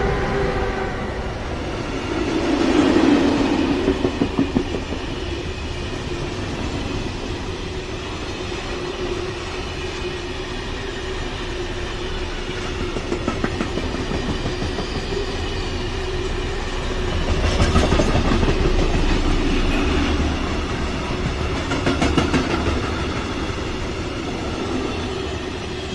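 A freight train hauled by a Siemens Vectron electric locomotive passing at speed, with a steady rumble and hum of wheels on rail. Clusters of clickety-clack from the wagons' wheelsets crossing rail joints come about three seconds in and again around eighteen and twenty-two seconds.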